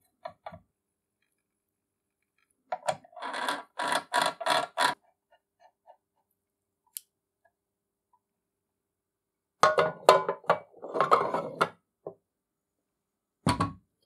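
Metal tools and brass parts of a coffee grinder clinking and clicking as a nut is fitted and tightened with wrenches on the grinder's shaft, in two short bursts with some ringing. A single heavier knock comes near the end.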